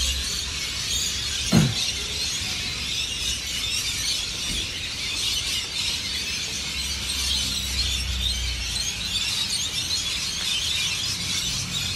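Dense, unbroken chatter of a large flock of birds calling together, with a low rumble underneath. A short, loud sound falling steeply in pitch stands out about a second and a half in.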